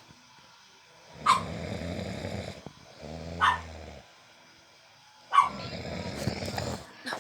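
A man snoring heavily in his sleep, two full breaths. Each opens about a second and about five seconds in with a sharp snort into a rough, rattling snore, followed by a low, droning, growl-like tone.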